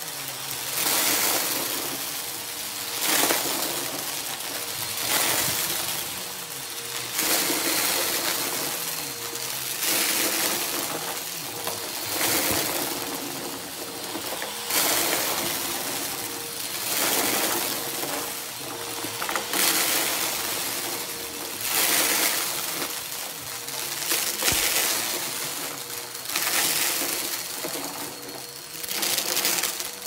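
Upright vacuum cleaner running steadily while it sucks up small crunchy debris, which crackles and rattles through the machine. The sound swells and eases about every two seconds as the head is pushed forward and pulled back.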